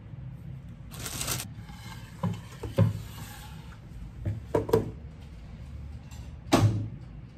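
Kitchen handling sounds: a short rustle about a second in, then a string of separate knocks and taps as things such as a plastic container are picked up and set down on a stainless steel counter and a wooden cutting board.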